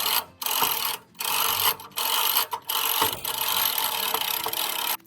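Winch pulling a log in several bursts of ratcheting, clattering mechanical noise with short pauses between, cutting off sharply near the end.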